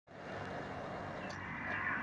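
Steady outdoor background noise with a low hum, as of distant traffic or machinery.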